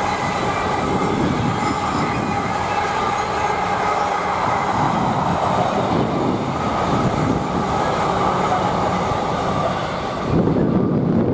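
A train running past along the line: a steady noise of wheels on rails with a few thin squealing tones. About ten seconds in the train sound falls away and wind gusts on the microphone.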